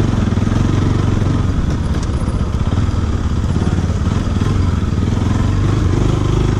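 Motorcycle engine running steadily at low revs as the bike rolls slowly along a rough dirt track, heard from the rider's seat.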